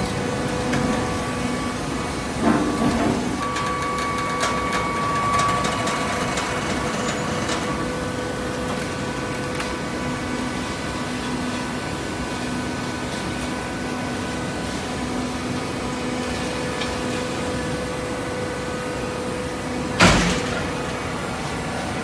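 Industrial horizontal hydraulic baler running with a steady hum from its electric motor and hydraulic pump. There is a short knock about two and a half seconds in and a loud bang with a brief ring-out near the end.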